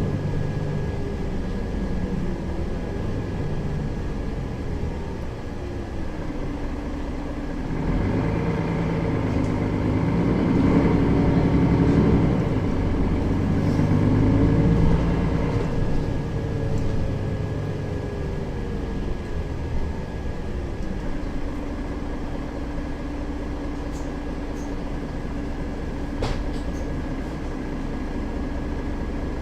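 Mercedes-Benz Citaro facelift city bus heard from inside while driving: engine and drivetrain running, growing louder and climbing in pitch from about 8 seconds in as the bus accelerates, then settling to a steadier, quieter run. A thin steady whine sits over it throughout.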